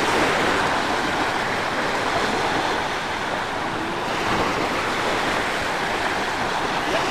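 Small sea waves breaking and washing on the beach, a steady rushing hiss.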